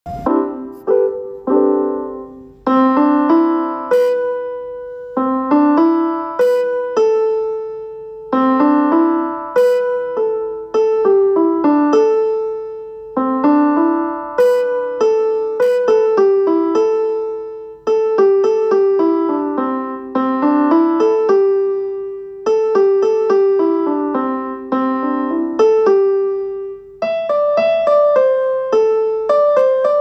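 Phone ringtone melody: single struck notes that ring and fade, playing a short tune repeated over and over.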